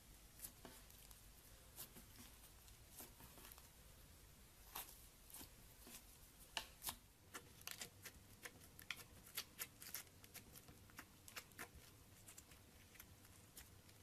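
Slime being squeezed and stretched by hand, giving faint, irregular sticky clicks and small pops, busiest in the middle of the stretch.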